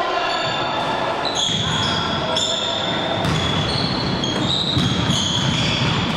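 A basketball bouncing on a hardwood gym floor while sneakers squeak in a string of high, drawn-out squeals as players run the court, echoing in the large gym.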